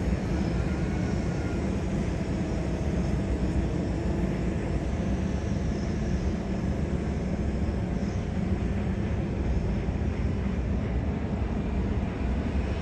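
Jet airliner engines running steadily as a Boeing 737 moves along the runway: an even rumble with a faint whine above it.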